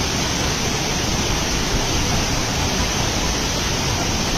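Steady, even rushing noise that goes on without a break or change.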